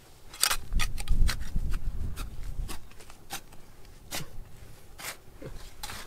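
Small metal hand trowel digging and scraping through dry, stony soil: a quick run of short, gritty scrapes and crunches, loudest in the first half.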